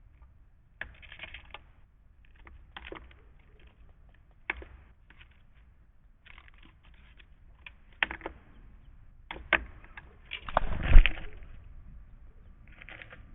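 Irregular pecking taps and clicks at a wooden bird feeder from birds feeding, with a louder rustling bump about ten to eleven seconds in.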